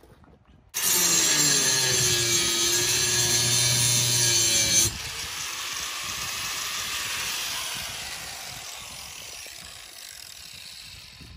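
Angle grinder cutting a notch into steel bar: a motor whine under a grinding hiss that starts suddenly about a second in, drops to a quieter hiss after about four seconds, then fades away.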